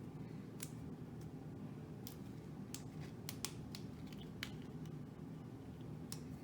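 Faint, irregular light clicks and taps from trading cards and a rigid plastic top loader being handled, about a dozen scattered ticks.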